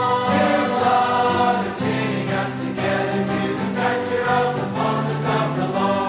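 A choir singing a hymn in harmony, several voice parts holding long notes.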